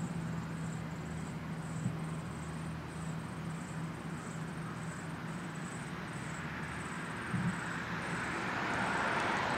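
Outdoor ambience: a steady low hum, a faint high chirping that repeats about twice a second, and the rush of road traffic swelling near the end.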